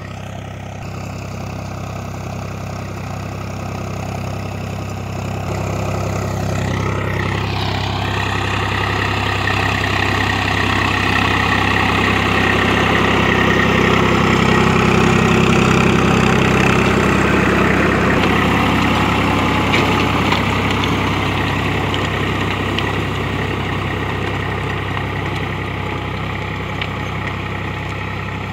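Diesel tractor engine running steadily as it pulls a rotavator through the soil, growing louder as the tractor passes close by in the middle and fading as it moves away.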